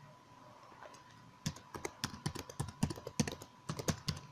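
Computer keyboard typing: after about a second and a half of quiet, a quick run of around fifteen keystrokes as a password is typed in. A faint steady high whine sits underneath.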